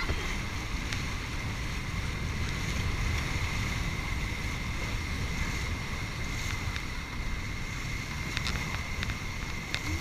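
Whitewater rapids rushing around an inflatable raft while the crew paddles, with wind rumbling on the action-camera microphone. A few light clicks near the end, and a faint steady high whine.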